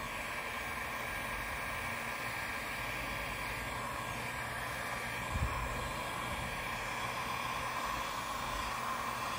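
Electric heat gun running steadily: an even blowing hiss with a faint whine, as hot air is played over reflective tape. A brief soft knock about five and a half seconds in.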